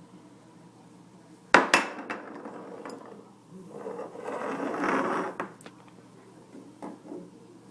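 Food containers in a refrigerator knocking and clattering as a baby handles them: one sharp knock about a second and a half in, a short clatter after it, then a longer stretch of scraping and rustling, with a couple of small clicks near the end.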